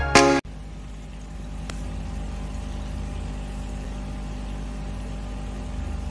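Background music cuts off about half a second in, leaving a steady low electric hum, irritating, from an aquarium air pump driving an air stone.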